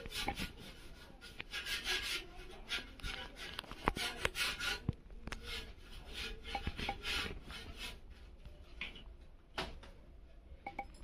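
Small brush scrubbing caked dust off a ceiling fan's metal blade in quick, irregular, scratchy strokes, with a few light knocks. The strokes are dense for the first half and thin out after about five seconds.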